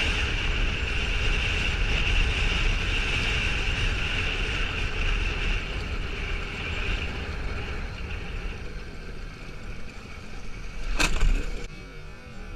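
Motorcycle running along a dirt road, with engine and wind noise that eases off over the ride, and a single sharp bang about eleven seconds in, after which the sound drops away.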